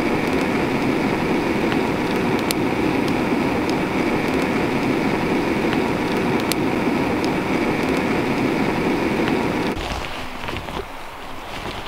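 Campfire burning: a steady rush of flames with a few sharp crackles and pops. The sound cuts off almost ten seconds in, giving way to quieter scattered clicks.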